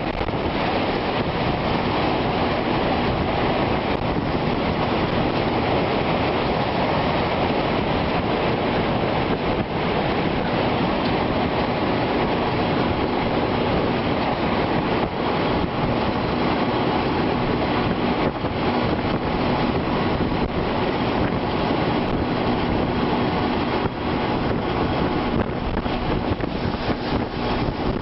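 Steady, loud roar of a large tornado passing close by, a train-like rumble of wind with gusts buffeting the microphone. A few sharp ticks stand out from the roar.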